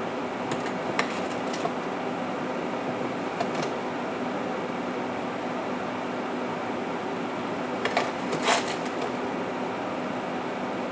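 Sugar being scooped with a metal measuring cup and poured into a pot, heard as short gritty scrapes and rustles about a second in, at three and a half seconds, and twice near eight seconds, the last the loudest. A steady hum runs underneath.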